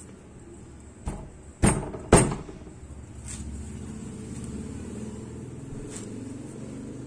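A screwdriver prying at the frame of a dismantled LCD monitor panel: three sharp cracks about one, one and a half, and two seconds in, then a couple of faint clicks. A low steady hum sets in around three seconds.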